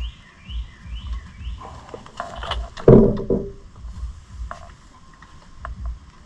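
Metal clanks and clicks of hand tools on the bolts and parts of a case saver being fitted at the countershaft sprocket of a Yamaha Raptor 700R's engine. A cluster of clanks comes about two to three seconds in, the loudest near three seconds, with lighter clicks later. A bird chirps repeatedly through the first second and a half.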